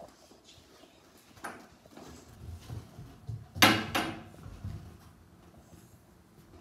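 Phone-handling noise and footsteps while walking, with one loud scraping rustle a little past halfway that fades within about half a second.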